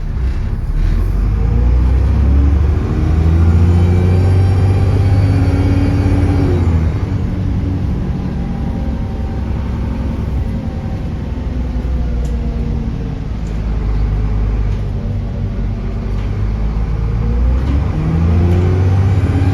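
Diesel engine of a double-decker bus pulling away under load, with the turbocharger whistling as the revs climb. It accelerates for several seconds, eases off, then pulls up again near the end.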